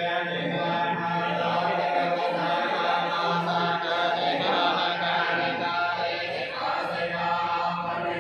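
Buddhist monks chanting together at a funeral: a steady, continuous chant.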